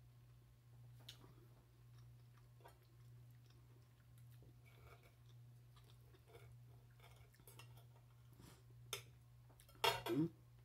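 Soft, close chewing of a mouthful of food, with faint clicks of a metal knife and fork on a glass plate over a steady low hum. A sharp, louder clatter comes near the end as the knife works on the plate.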